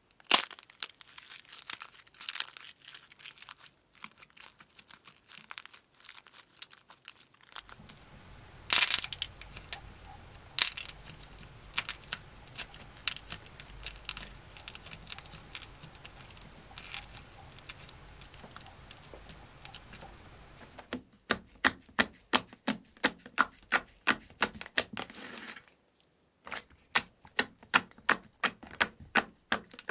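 Slime and squishy toys worked by hand: scattered soft crackling and tearing sounds, then from about two-thirds of the way in a regular run of sharp pops, about three a second, as hands press and knead glossy slime in a tray.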